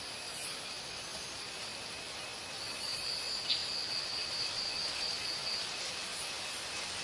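Outdoor ambience: a steady hiss with a thin, high insect trill that comes in about two and a half seconds in and holds for about three seconds before stopping. There is a brief click in the middle.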